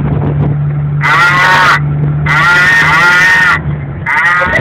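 A car-mounted PA horn speaker blasts three loud, animal-like calls, the middle one the longest. A steady low hum runs underneath until near the end.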